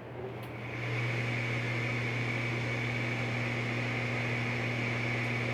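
Tempstar gas furnace's motor starting up and running: a faint click about half a second in, then a steady electric hum with a high whine that builds over about a second and holds level.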